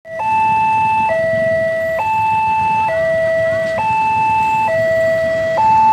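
Railway level-crossing warning alarm sounding, an electronic two-tone signal alternating between a higher and a lower tone, each held a little under a second.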